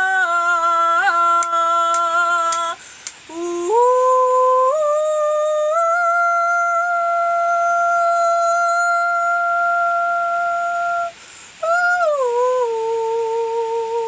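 A woman humming wordless light-language tones in three long held phrases. The first note holds steady, the second climbs in steps to a higher sustained note, and the third glides down to a note with a slight waver.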